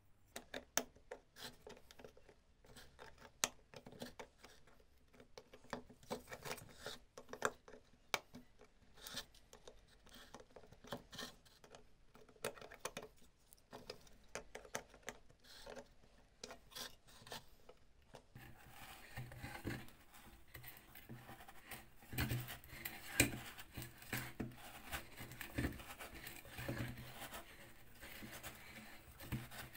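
Small metal parts of an old kerosene camping stove being handled, with scattered clicks and light knocks. In the last third, a cloth rubs and scrapes inside the rusty metal burner tube.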